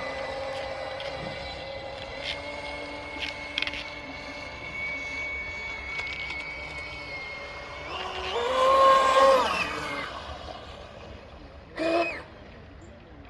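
Small electric motor of an RC boat whining at a steady pitch, with a louder surge of the whine about two-thirds of the way through and a brief one near the end.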